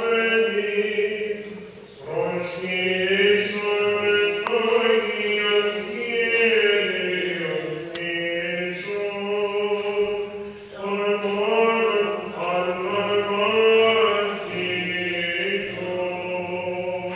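Byzantine chant: a solo Orthodox chanter singing long, slowly ornamented held notes in phrases, with brief pauses for breath.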